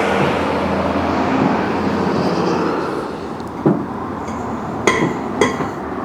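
Impact wrench hammering on a stuck lug nut for about three seconds, then stopping. Three sharp metal clinks follow.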